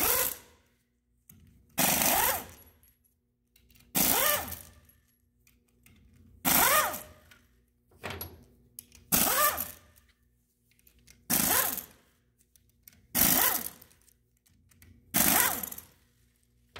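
Pneumatic wrench unscrewing the end-plate bolts of a cast-iron gear pump in about eight short bursts roughly every two seconds, each a rising whine as the tool spins the bolt out.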